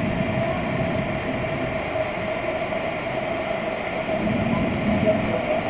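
A curtain of water pouring down from overhead onto a lazy river, a steady rushing splash.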